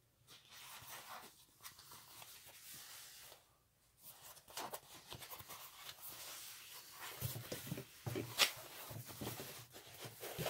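Rustling and crinkling of a rolled craft canvas and its glossy protective film as it is unrolled and smoothed by hand, with a sharper crackle a little after eight seconds in.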